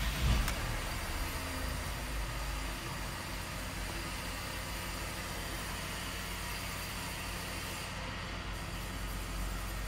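Mercedes W204 C-Class engine idling steadily, heard as a low hum inside the cabin, with a single click about half a second in.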